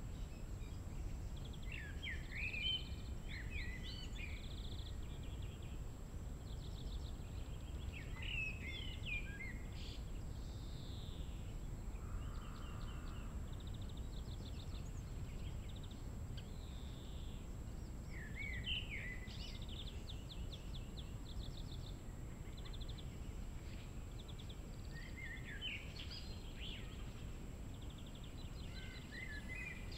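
Songbirds singing short phrases of slurred whistles and fast trills, repeated every several seconds, over a steady low background rumble.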